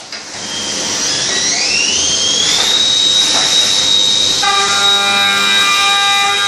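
Spindle of a Leadwell V-50L CNC machining centre spinning up, its whine rising in pitch and then holding steady as a high whine about three seconds in. About four and a half seconds in, several more steady tones join it as the machine works.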